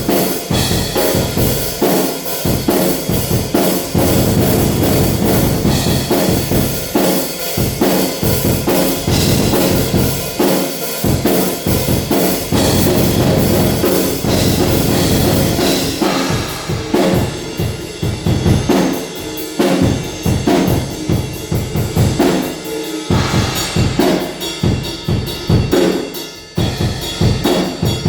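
Acoustic drum kit played in a living room: bass drum, snare and cymbals in a busy groove. About halfway through the cymbal wash thins out and the separate drum hits stand out more.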